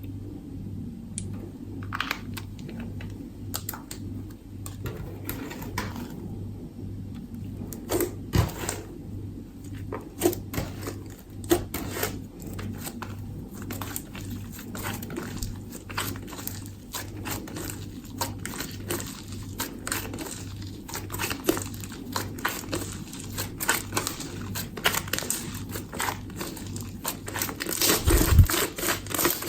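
Slime being worked and mixed: many small sticky clicks and crackles, getting busier and louder near the end, over a faint steady hum.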